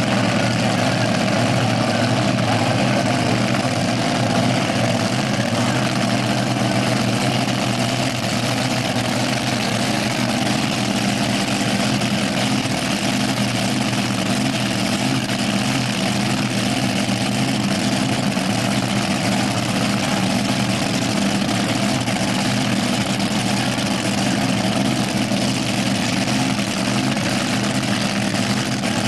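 Dragster's engine idling steadily.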